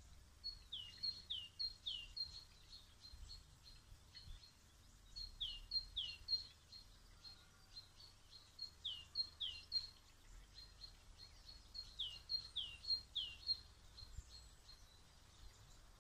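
A small songbird singing outdoors in short repeated phrases of high notes, each note dipping in pitch, four phrases a few seconds apart. A faint low rumble runs underneath.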